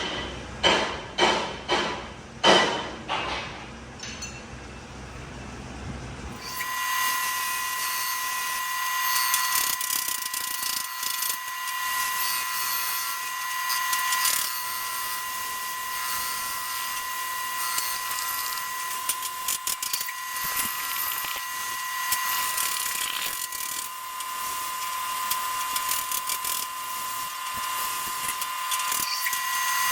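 A few sharp ringing metal knocks, about two a second, die away within the first three seconds. From about six seconds in, a machine cutting a steel spacer ring runs with a steady high whine and a crackling hiss.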